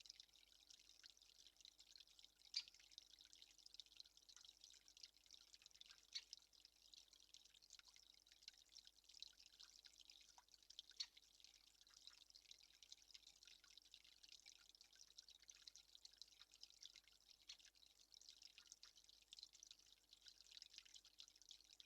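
Near silence: faint outdoor ambience, a soft high hiss with scattered small ticks and a few slightly louder clicks.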